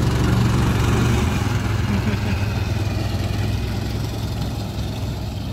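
Small engine of a child-sized Mystery Machine (VW Kombi replica) ride-on car running steadily as it drives off, its hum slowly fading as it moves away.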